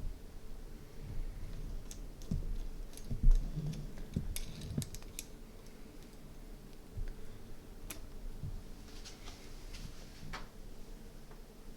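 Scattered light metallic clicks and taps of hand tools and a BMX chain being worked on, with a louder knock about three seconds in and a quick run of sharp clicks soon after.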